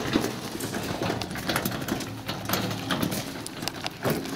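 A metal wheelbarrow pulled over a gravel road, its wheel crunching and rattling over the stones, mixed with footsteps on the gravel: a steady run of irregular crunches and knocks.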